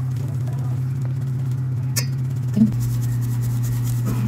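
Flour being sifted through a metal mesh sieve over a stainless steel bowl: faint rustling and scraping of the mesh, with a sharp tap about two seconds in. Under it runs a steady low hum.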